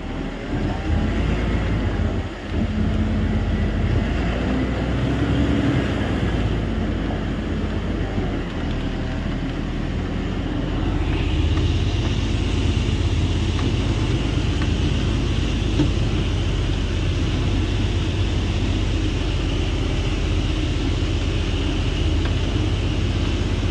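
Truck's diesel engine running as the truck moves slowly over rough, muddy ground, heard from inside the cab. A steady high whine joins about halfway through.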